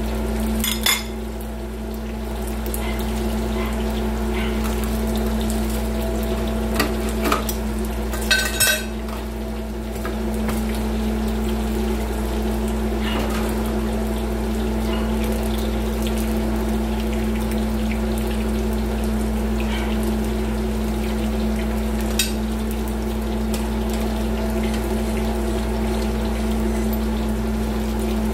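Pork frying in oil in a pan, sizzling steadily under a constant low hum, while a metal spoon stirs a stainless stockpot of kare-kare peanut sauce. The spoon clinks against the pot a few times in the first nine seconds, with one more clink near the end.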